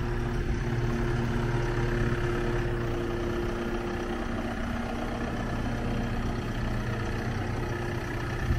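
JCB 531-70 telehandler's four-cylinder diesel engine running steadily at an even, low speed.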